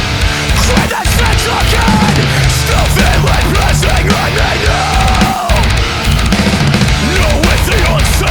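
Loud heavy rock music with a driving, steady beat.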